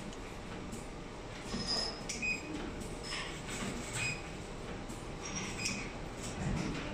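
Faint factory-floor background noise: a steady hum and hiss, with a few short, high chirps scattered through it.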